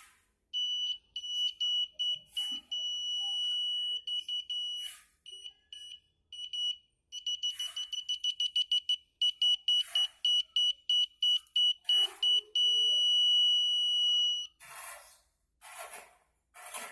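A homemade bicycle horn, a mini electric buzzer behind a trumpet funnel, sounded by pressing a small push switch. It gives one steady, shrill beep, held for a few seconds at a time, then tapped out in rapid short beeps, then held again. A few short rustles or knocks from handling come near the end.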